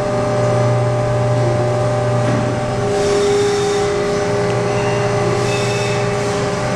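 Chip augers and chip conveyor of a Haas VF-6SS machining center running: a steady mechanical hum with several held tones, one of which grows stronger about three seconds in.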